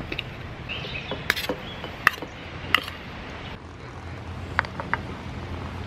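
Metal spoon clinking and scraping against a tin of wet cat food as the food is spooned out onto a dish: a handful of separate sharp clicks over a steady low background hum.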